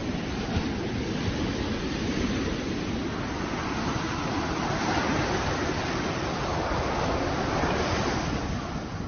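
Sea surf breaking and washing up the beach, a steady rushing noise that swells through the middle and eases off near the end.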